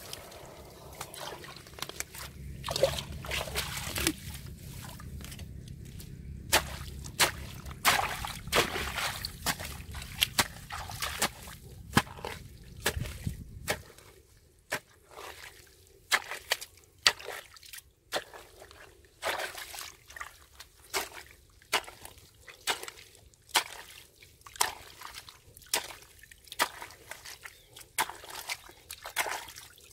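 Steel spade cutting into and scooping waterlogged mud, with repeated wet slaps, sloshing and water dripping and trickling off the blade. A low steady rumble runs under the first half and cuts off suddenly about halfway through.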